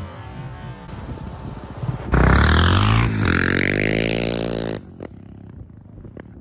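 Quad engine revving hard for about two and a half seconds, its pitch rising and then falling, starting and stopping abruptly, over a lower engine rumble. A few light clicks and knocks follow near the end.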